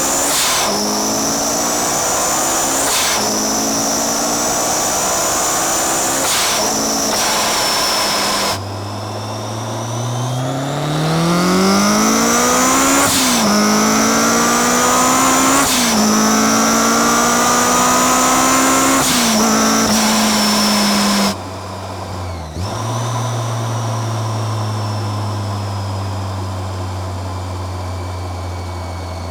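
Supercharged Honda S2000's four-cylinder engine under hard acceleration, revs climbing and dropping back at each upshift, with the Kraftwerks supercharger's high whine over it; this happens in two runs of pulls. Near the end the throttle closes and the engine settles to a quieter, steady cruise with the whine fading.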